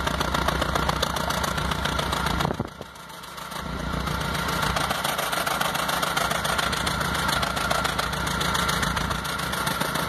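Exhaust of a 2006 Stratus with a 2.0 engine idling at the tailpipe, popping and uneven rather than an even note: the sign of a misfiring cylinder. The sound drops away for about a second about two and a half seconds in, then comes back.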